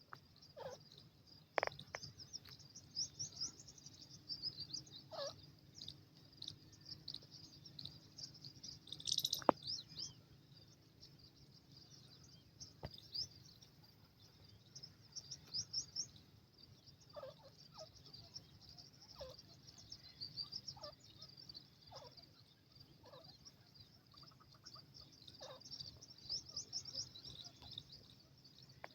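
Birds chirping: clusters of rapid high-pitched chirps coming and going, with a sharper, louder sound about nine seconds in.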